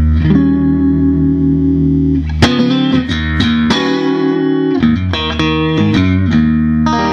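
Fender Stratocaster electric guitar played clean through a Fender Vibrolux Reverb amp: a held chord, then picked chords and single notes from about two and a half seconds in, with a quicker run of notes near the middle.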